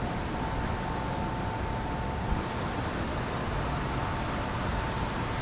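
Steady rushing of a shallow river current running over rocks and riffles, with a faint thin high tone held steady underneath and a single small click about halfway through.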